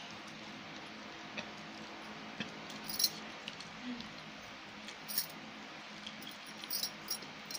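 Fingers mixing rice and chicken curry on a steel plate, with soft squishing and a few faint metallic clicks against the plate, three of them clearer than the rest.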